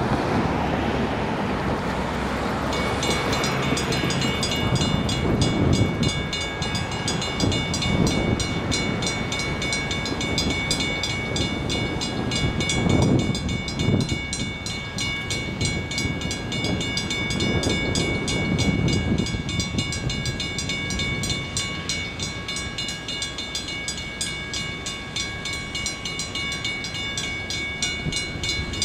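Steam locomotive pulling a passenger train away in the distance, with wind rumble on the microphone. From about three seconds in, a steady, fast-pulsing high ringing sounds on throughout.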